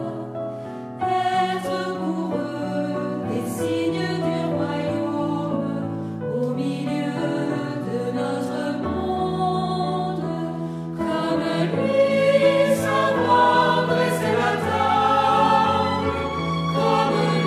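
Choral music: a choir singing slow, held chords.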